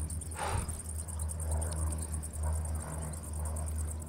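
A chorus of insects chirring, high and fast-pulsing without a break, over a low steady hum.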